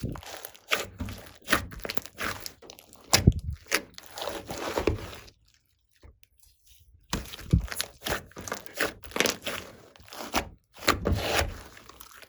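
Slime being squeezed, stretched and folded by hand, giving irregular sticky clicks, crackles and squelches. The sounds come in two runs with a pause of about two seconds in the middle.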